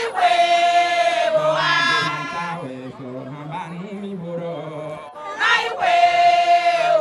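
Voices chanting a call-and-response song. A loud high call is held for about a second at the start and again about five and a half seconds in, with lower voices chanting between the calls.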